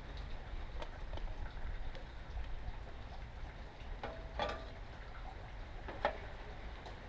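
Metal clinks and small clicks of hand tools and parts being handled, over a low steady rumble. The loudest is a clink with a short ring about four and a half seconds in, followed by a sharp knock about six seconds in.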